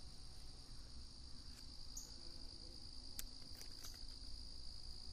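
Crickets chirring in a faint, steady high drone, with a few light clicks about three seconds in.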